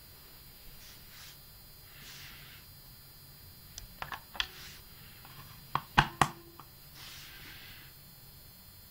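Hard plastic clicks and clacks as lithium cells are handled and pushed into the spring-loaded slots of a TrustFire TR-001 charger: a cluster of sharp clicks about four seconds in, then two loud clacks about six seconds in, with soft rustling between.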